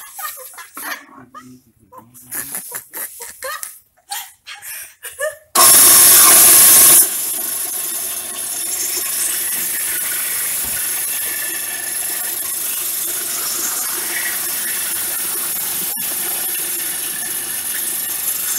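Electric coffee grinder, a 10 kg-capacity grinding mill, grinding coffee beans. After a few light clicks and knocks, it comes on suddenly about five and a half seconds in, loud for the first second and a half, then settles to a steady grinding hiss as the ground coffee pours out.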